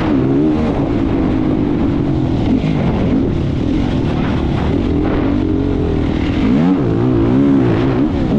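Competition vehicle engine running hard and close, its pitch climbing and dropping again and again as the throttle is worked and gears change.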